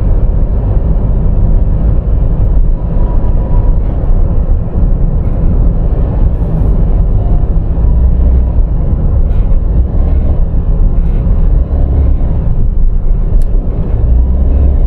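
Honda N-BOX Custom Turbo's 660 cc three-cylinder turbo engine running with a loud steady low rumble and a faint thin high whistle over it. This is the abnormal noise that the owner attributes to whistling from the electric wastegate actuator on a rebuilt turbocharger.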